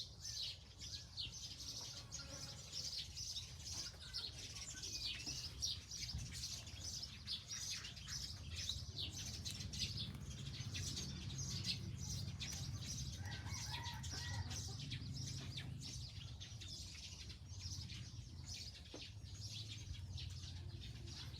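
Small birds chirping in a dense, rapid chatter of short high notes, thinning out after about halfway, over a steady low hum. A brief lower call comes in about two-thirds of the way through.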